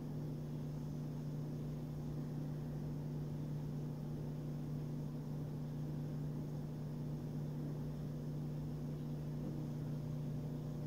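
A steady low hum with a faint hiss that does not change.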